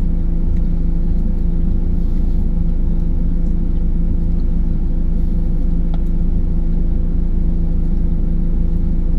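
An engine running steadily at constant speed: a loud low rumble with an unchanging hum, and a faint tick about six seconds in.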